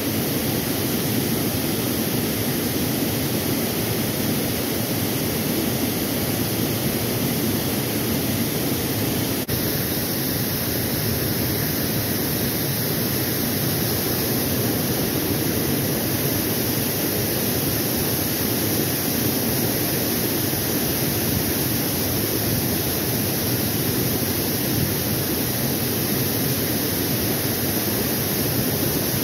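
Steady rush of water pouring over a dam spillway and churning into the pool below.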